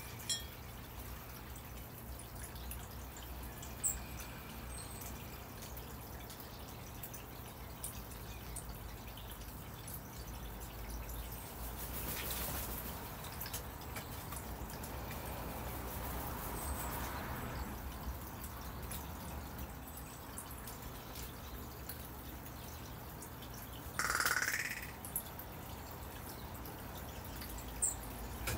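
Northwestern crows pecking peanuts from a ceramic dish: a few sharp beak taps and clicks over a steady low background rumble, with one brief, louder rising sound about 24 seconds in.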